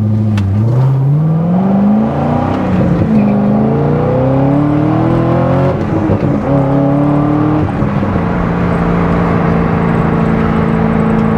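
Corvette C6 Z06's 7.0-litre LS7 V8 accelerating through the gears: the engine note climbs in pitch in three pulls, with short breaks at the upshifts, then settles into a steady cruise for the last few seconds.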